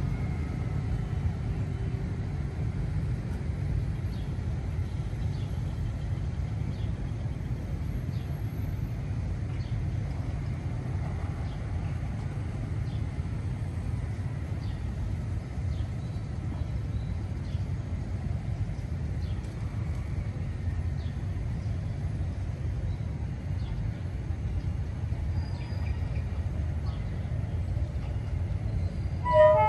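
Steady low outdoor rumble, then a brief horn toot near the end from an approaching D19E diesel-electric locomotive.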